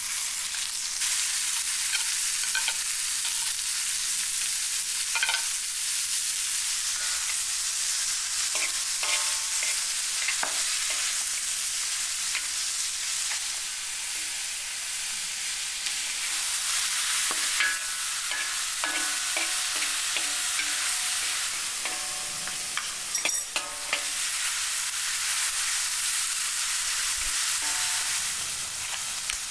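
Food frying in hot oil in a pan: a steady sizzle, with a few faint light taps now and then.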